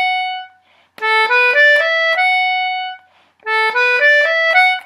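Anglo concertina playing a short rising run of quick notes, A, B, D, E, ending on a held F sharp, drawn all on the pull. It is played twice, with a brief pause between, after the held note of the previous run dies away.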